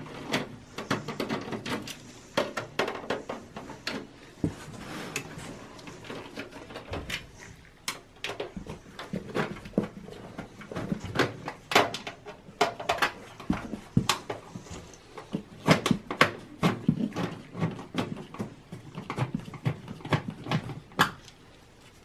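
Phillips screwdriver turning out the screws that hold the power supply in a Dell PowerEdge T110 II server's steel chassis, with irregular metal clicks, taps and rattles throughout.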